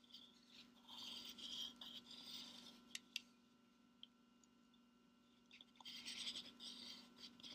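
Pencil in a plastic drawing compass scratching across paper as arcs are swept, in two strokes, with a couple of small clicks between them. The sound is faint.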